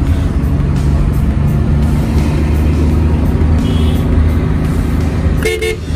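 Steady engine and road noise of a vehicle driving along a town road, with background music over it. A brief pitched sound comes about five and a half seconds in.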